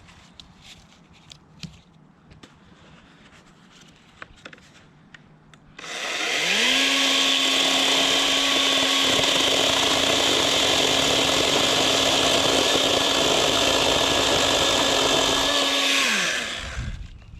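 Greenworks Pro 80V cordless chainsaw's electric motor spinning up about six seconds in, running at a steady high pitch for about ten seconds, then winding down. A few light clicks come before it.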